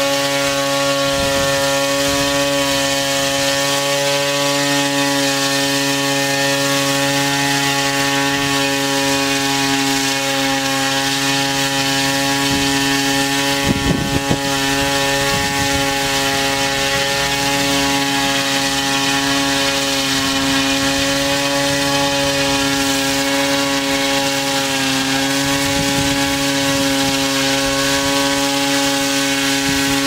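Large multirotor drone hovering, its rotors making a steady, fixed-pitch hum, with a short burst of noise about fourteen seconds in.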